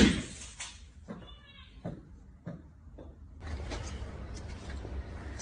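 A loud crack as a struck golf ball hits something hard just after the swing, followed by three lighter knocks coming closer together. After about three and a half seconds, a steady hiss takes over.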